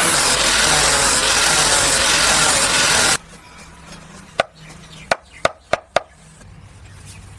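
A loud steady rushing noise that cuts off suddenly a little over three seconds in. Then five sharp metallic hammer strikes on steel, each with a ringing note; the last four come in quick succession.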